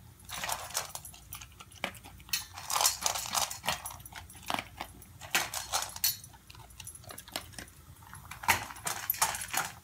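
American Eskimo dog eating dry kibble from a stainless steel bowl: irregular crunching and clinking of food against the metal bowl, the dog bolting it down rather than chewing.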